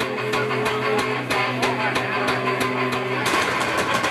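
Live rock band playing an instrumental passage through a PA: electric guitars and bass hold distorted chords over a steady drum beat, with cymbal hits about four times a second. The low held chord breaks off a little after three seconds in.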